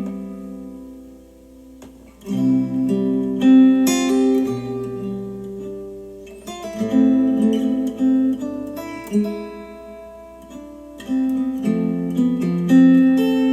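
Acoustic guitar chords strummed and left to ring, a new chord about every two seconds, played back as recorded music through Monitor Audio Bronze 100 bookshelf speakers driven by a Yamaha A-S301 integrated amplifier.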